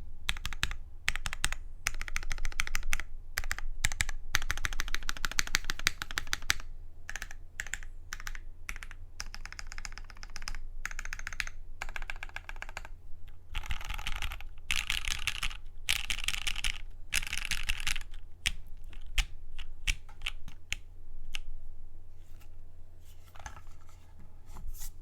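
Custom GS60 mechanical keyboard with lubed Gateron Ink Black linear switches on a UHMWPE plate and GMK keycaps, typed on in quick runs of keystrokes broken by short pauses.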